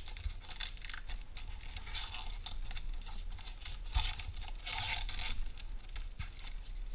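Foil wrapper of a Panini Zenith hockey card pack being torn open and crinkled by hand: a run of rustling tears, loudest about two seconds in and again around five seconds in.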